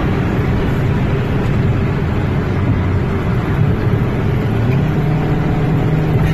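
Car engine and road noise heard from inside a car driving at speed: a steady drone whose low engine note steps up in pitch near the end.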